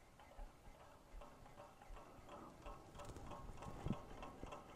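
Low-temperature Stirling engine running on the heat of a cup of hot coffee, its moving parts ticking faintly and regularly, about three clicks a second. A soft low bump a little before the end.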